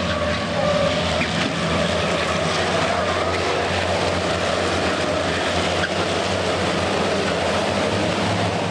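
Engines of a pack of racing trucks running at speed on the circuit, a loud, steady mixed din of several turbo-diesel engines.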